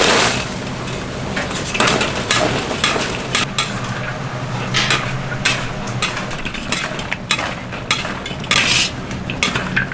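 Metal utensils clanking and scraping against pans and trays during cooking, in irregular sharp strikes over a steady low hum.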